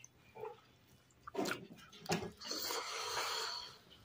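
Close-up eating sounds of a mouthful of rice and pork eaten by hand: a few wet chewing and lip-smacking clicks, then a long noisy breath lasting about a second and a half.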